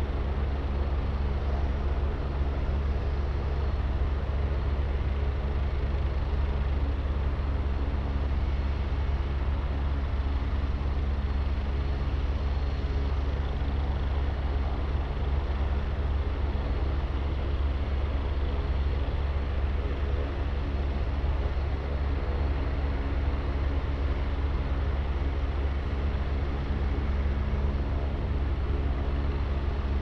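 Agusta A109 police helicopter running on the ground, a steady drone of its turbine engines and rotor that does not change.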